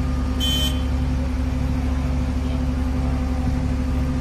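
Mobile crane's engine running steadily as it holds a steel girder span suspended on its hoist cables, with a short high-pitched ping about half a second in.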